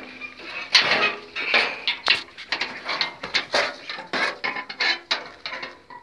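Young goats jostling right at the microphone, a rapid, irregular run of close clicks, knocks and clatter.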